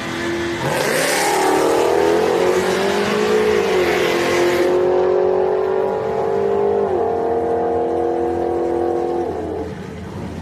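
Chevrolet TrailBlazer's engine launching hard at a drag strip: the pitch climbs sharply under a harsh hiss, drops at upshifts about 4 and 7 seconds in, and fades as the truck runs away down the track.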